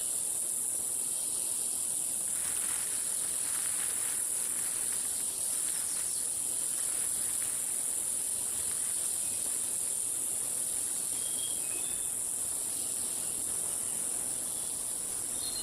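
Steady, high-pitched drone of a tropical rainforest insect chorus. A few faint short high notes come and go over it.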